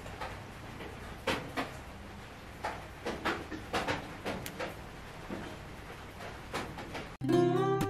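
Light, irregular clicks and taps of multimeter test probes touching the contacts of high-power LEDs on an LED strip board, as each LED is checked in diode-test mode. Acoustic guitar music comes in near the end.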